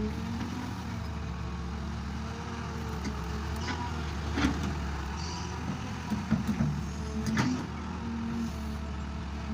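Tractor engine running steadily, with a few sharp knocks or clatters about halfway through and again near the end.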